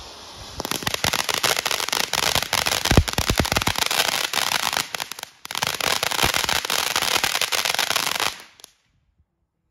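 TNT Neon Force consumer fountain firework burning: a dense spray-hiss full of rapid crackling pops, with one louder pop about three seconds in. The sound dips out briefly just after five seconds, then carries on until it cuts off suddenly about eight and a half seconds in.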